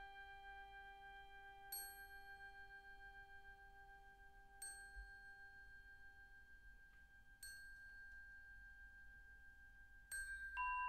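Soft background music of single bell-like struck notes, glockenspiel or marimba in character. Each note rings on for several seconds, one about every three seconds, and the notes come faster near the end.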